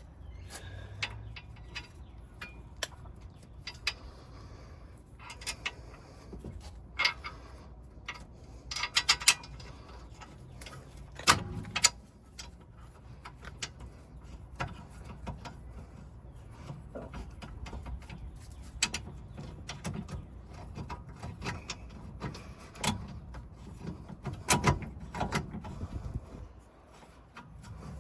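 Irregular metallic clicks, clinks and knocks of hand tools and parts being handled during suspension work, with a few louder knocks about a third of the way in and again near the end.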